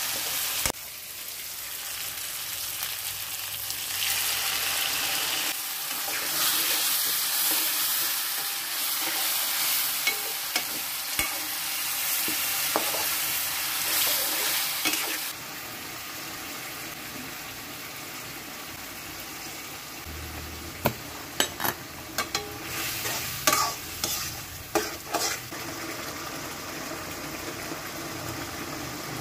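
Chopped red chili sambal sizzling in oil in a wok as a spatula stirs it. About halfway the sizzle drops quieter, and near the end come a handful of sharp clicks and scrapes of the spatula against the pan.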